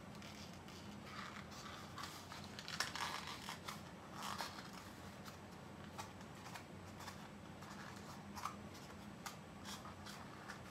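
Faint rustling and crinkling of a cardboard glue mouse trap being folded by hand, with a few small scratches and clicks.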